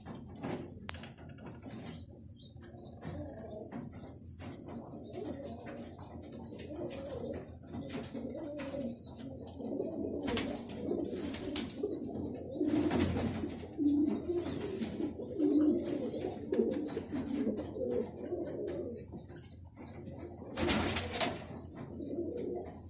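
Pigeons cooing, with a run of rapid high squeaks a few seconds in from squabs begging to be fed, and a few short loud wing flaps later on.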